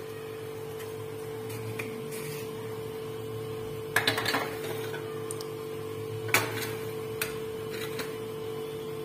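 A steady electrical hum, with a short cluster of light clicks and knocks about four seconds in and one sharper tap a couple of seconds later, as spice jars and utensils are handled on a marble kitchen counter.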